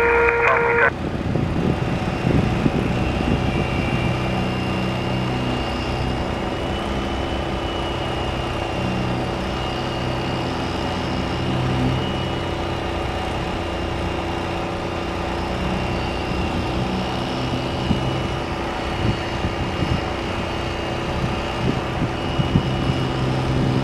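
A radio transmission cuts off about a second in, leaving a steady engine drone at an even level.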